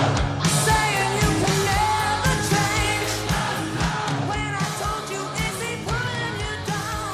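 Rock-style music with a sung vocal and a steady beat, fading out gradually.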